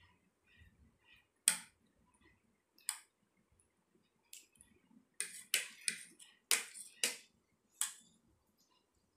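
Metal spoons clinking against plates as two people eat: about ten sharp clinks, a few scattered at first, then coming closer together in the second half.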